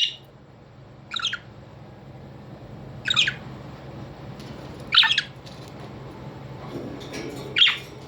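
Pet parrot giving short, harsh squawks, about five of them spaced roughly two seconds apart, each sweeping down in pitch.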